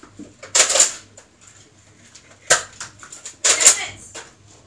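Nerf blasters being worked off camera: a few sudden plastic clacks and short bursts of noise from priming and firing, the sharpest about two and a half seconds in and a cluster near three and a half seconds.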